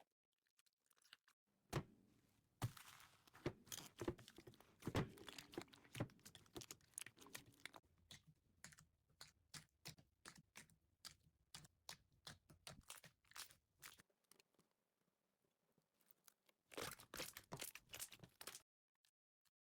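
Slime being squished and stretched by hand, giving a run of sticky clicks, pops and crackles. This starts about two seconds in and thins out by about fourteen seconds, and a second short burst comes near the end.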